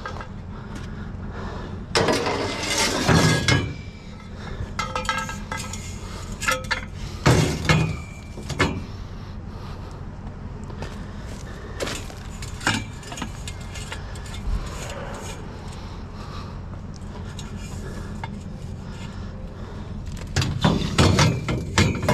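Metal trampoline-frame tubes clanking and clinking against each other as they are handled and loaded, with short ringing tones. The loudest clatters come about two seconds in, around seven to eight seconds in, and again near the end, with lighter clicks between.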